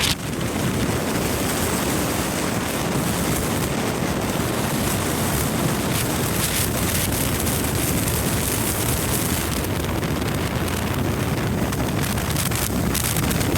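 Strong gale-force wind buffeting the microphone: a steady rushing noise.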